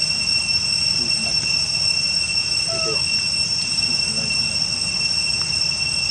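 A steady high-pitched drone over a low rumble, with a few faint short chirps about three seconds in.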